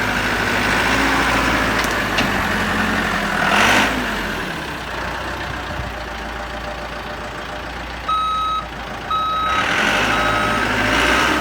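Caterpillar turbo-diesel backhoe engine running and briefly swelling a few seconds in. In the last few seconds its reversing alarm beeps about once a second as the machine backs up.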